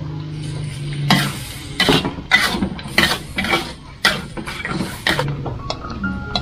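Metal spatula scraping and stirring in an aluminium wok, a quick run of scrapes two or three a second starting about a second in, over the sizzle of egg and seasoning frying.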